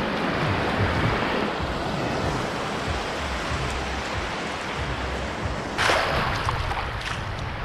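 Shallow surf washing in over sand close to the microphone: a steady wash of water, with a louder surge of a breaking wave about six seconds in.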